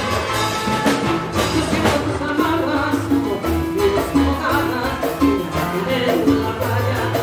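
A live Latin dance band playing: drum kit and percussion, electric guitars, bass and horns in a steady dance rhythm.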